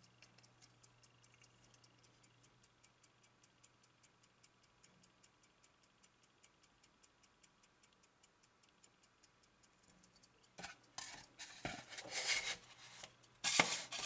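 Soviet AChS-1M aircraft cockpit clock's mechanical movement ticking fast and evenly, about five ticks a second. After about ten seconds, louder rubbing and knocking handling noise drowns it out as the clock is set into its foam box.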